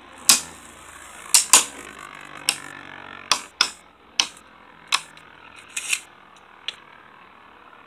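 Two Beyblade Burst spinning tops, Quetziko Q2 and Evipero E2, clashing as they spin in a plastic stadium: about ten sharp plastic clacks at irregular intervals, coming further apart and fainter toward the end.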